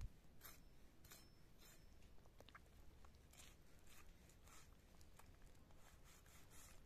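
Long kitchen knife cutting through raw lamb offal on a stone worktop: faint, irregular slicing and scraping strokes, a few to the second.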